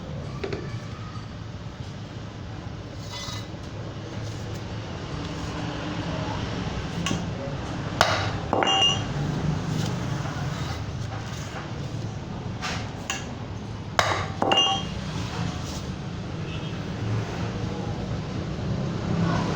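Sharp metallic clinks and taps, a few seconds apart, each with a short ring; the loudest come about 8 and 14 seconds in. A steady low rumble runs underneath.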